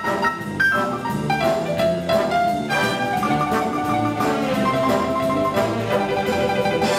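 Town wind band playing a piece: brass and woodwinds sounding sustained chords under a moving melody, with percussion.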